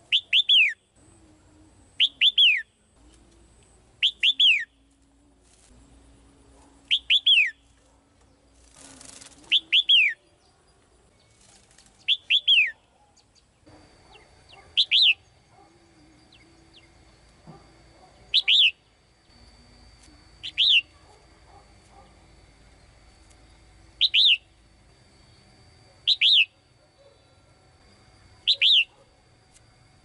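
Caged female red-whiskered bulbul calling over and over, a short sharp note sweeping quickly downward, about once every two seconds. A brief rustle, like flapping wings, about nine seconds in.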